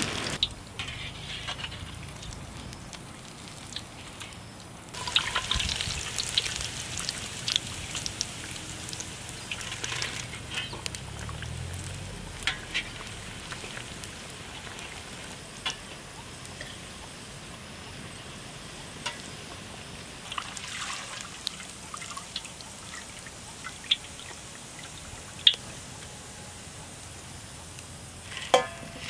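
Bread rolls deep-frying in hot oil in an iron kadai: a steady sizzle with scattered sharp pops and crackles.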